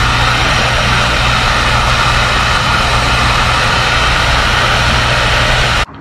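Electric heat gun running steadily, its fan blowing hot air to shrink clear heat-shrink tubing over a battery cable label, with a steady low hum under the rush of air. It stops abruptly near the end.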